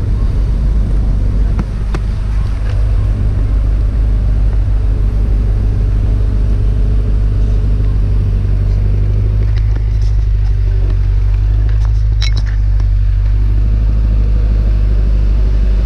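Motorcycle engine running steadily at low speed, a constant low drone heard close up from the bike, with a brief high-pitched chirp about twelve seconds in.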